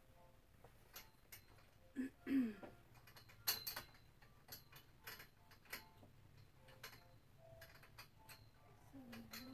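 Faint, irregular metal clicks and taps from hands working the clamp fitting on a steel clothes-rack top bar, with a sharper click about three and a half seconds in. A brief falling tone about two seconds in is the loudest sound.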